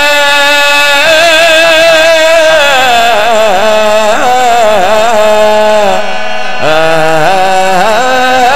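A man's voice singing a devotional Punjabi qasida through a microphone and loudspeakers. He holds long notes and bends them through wavering ornaments, with a short break for breath about six seconds in.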